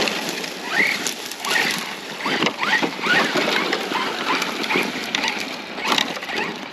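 Arrma Outcast 4S RC truck's brushless electric motor whining up in short throttle bursts, a string of quick rising whines, while tall dry weeds scrape and rustle against the body and tyres as it pushes through.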